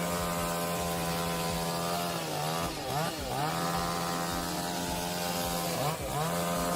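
Chainsaw engine running at high revs with a steady buzz, the revs dropping and picking up again twice, about two and a half seconds in and again near six seconds.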